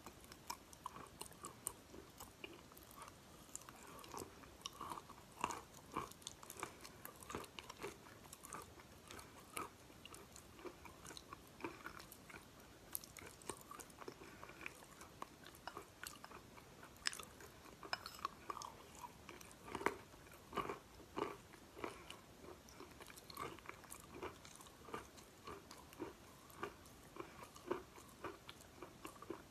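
Chalk being bitten and chewed, a steady irregular run of small crisp crunches.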